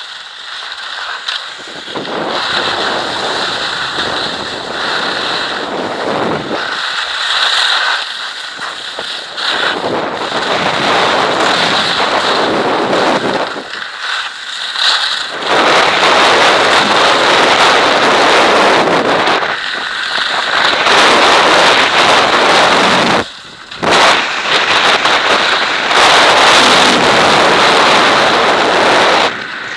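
Loud rushing wind over a moving skier's camera microphone, mixed with the hiss and scrape of skis on hard-packed snow. It surges and eases with the turns, dropping away sharply for a moment about 23 seconds in.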